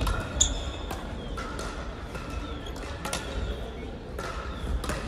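Crossminton rally in a large hall: sharp knocks of rackets striking the speeder at irregular intervals, roughly two a second, with short high squeaks between them.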